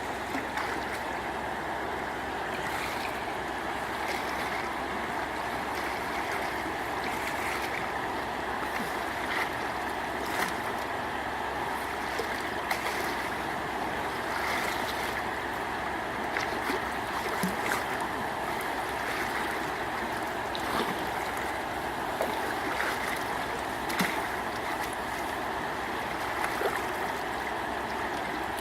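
Steady rush of flowing water, with scattered short splashes and knocks throughout.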